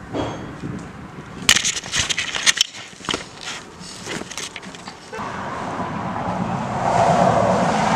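Handling noise from a camera almost falling: a flurry of knocks and rattles on the body and microphone, bunched between about one and a half and four and a half seconds in. After that a steady rushing noise builds toward the end.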